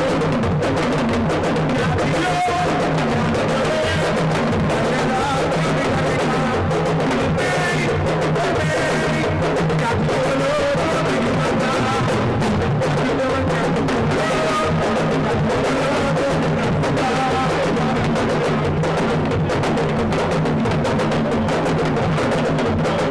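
Music with drums and percussion playing steadily.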